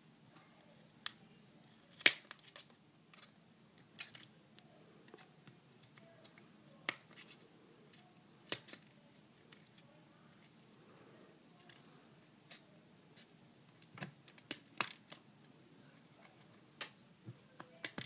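Metal case opener tool prying an iPhone's screen loose, making sharp, short clicks at irregular intervals, some in small clusters.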